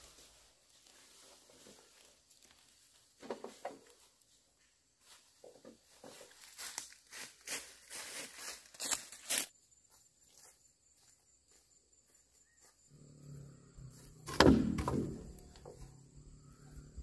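Footsteps and crackling rustle in dry fallen bamboo leaves as a long bamboo pole is carried through the grove. Then steady high insect buzzing with a low hum under it, and a single loud thud about two-thirds of the way through as the bamboo pole drops to the ground.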